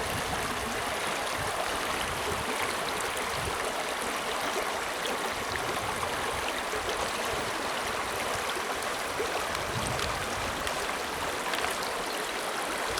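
Creek water flowing over rocks: a steady rushing and babbling, with small splashes and trickles.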